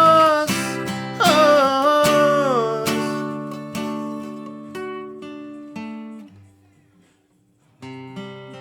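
Acoustic guitar and singing voice closing out a song. The last sung note is held, then a falling sung line follows about a second in. A few single guitar notes ring and die away to almost nothing, and a fresh chord is struck and rings out near the end.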